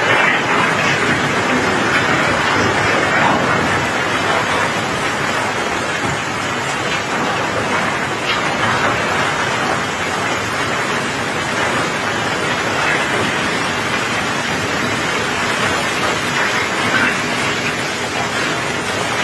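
Cobblestones and gravel pouring down a barge's wet steel unloading ramp in a steady rushing rattle, with rain falling and a few louder stone knocks.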